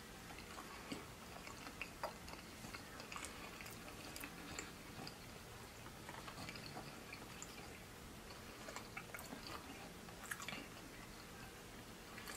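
Faint, close-up chewing and mouth sounds of a person eating, with small wet clicks and smacks scattered throughout.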